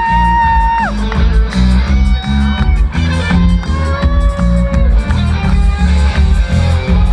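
Live rock band playing an instrumental break: an electric guitar lead slides up into a note held for about a second, then plays shorter melodic phrases over a steady drum and bass beat.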